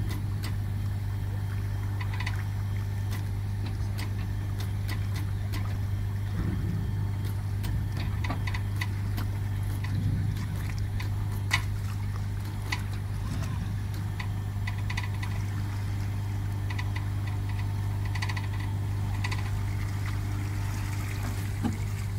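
Steady low engine hum of a boat's machinery running at a constant speed, with scattered faint clicks.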